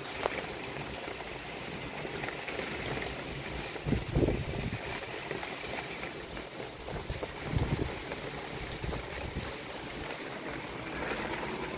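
Steady hiss of a heavy downpour, with a few short low gusts of wind, about four and seven and a half seconds in.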